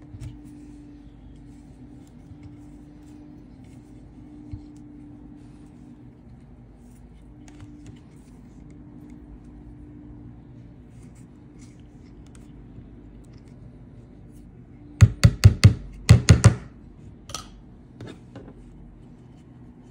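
A quick run of about seven sharp knocks on a hard surface within a second and a half, followed by a few softer taps, over a faint steady hum.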